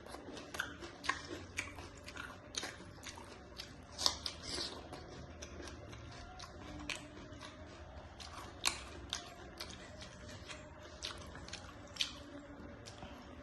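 A person eating close to the microphone: chewing with wet mouth clicks and smacks that come irregularly, a few louder ones about 4, 9 and 12 seconds in.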